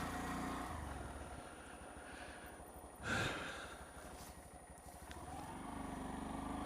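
Honda Z125 Monkey's small single-cylinder engine idling quietly, fading a little in the middle and building again near the end. A short breathy rush comes about three seconds in.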